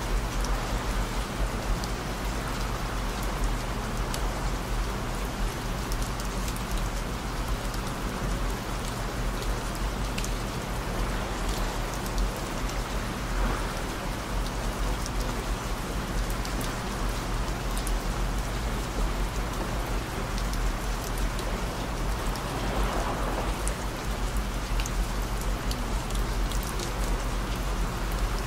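Rain falling steadily, a dense even hiss of many small drop ticks. Low steady drone tones run underneath.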